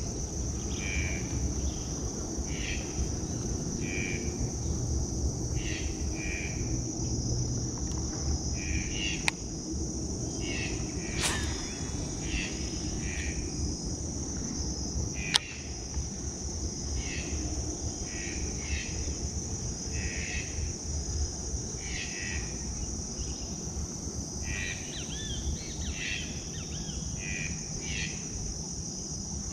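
Insects droning steadily at a high, even pitch, with short chirping calls repeating about once a second and a low rumble underneath. Three sharp clicks stand out, in the first half.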